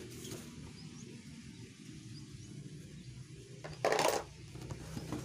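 Cardboard shoe box being handled, with one short rustle of cardboard about four seconds in, over a low steady hum and faint bird chirps.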